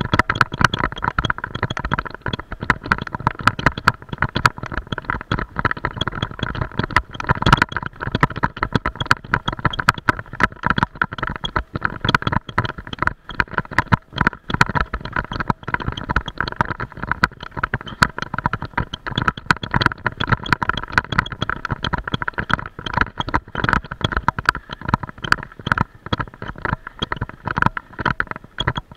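Continuous rattling and knocking of a camera mount jolting over a rough dirt and grass trail, with a steady whine running underneath.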